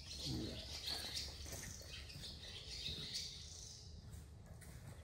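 Small birds chirping and twittering faintly in the background, with a brief low sound about half a second in.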